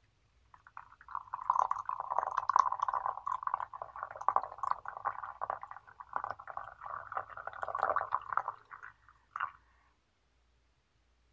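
Water poured in a steady stream into a glass teapot onto loose black tea leaves, splashing as the pot fills. The pour starts about half a second in and stops near nine seconds, followed by one last short splash.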